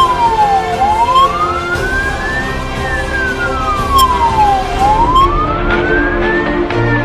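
Fire engine's wail siren on an emergency run, its pitch sliding slowly up and down about once every four seconds, heard from inside the truck's cab.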